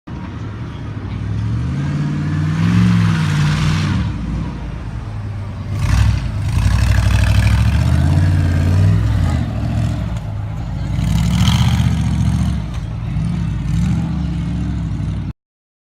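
Monster truck engine revving, its pitch rising and falling several times, with a rush of noise over it; it cuts off suddenly near the end.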